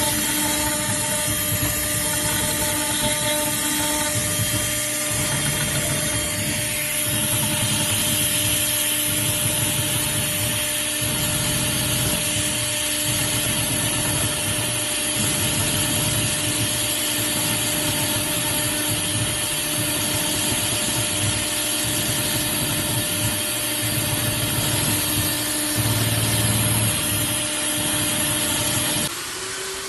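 Small CNC router's high-speed spindle milling aluminium: a steady whine over a dense cutting hiss, with a low rumble that pulses as the cutter moves. The cutting noise drops away sharply just before the end.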